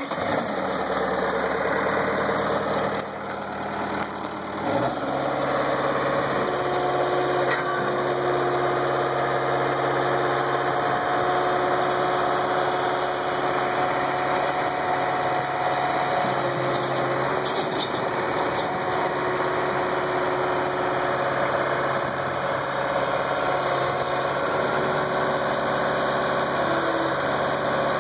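A 2007 Bobcat T190 compact track loader's diesel engine starts, then runs steadily; about five seconds in its note steps up to a higher steady speed while the loader arms raise and lower the bucket.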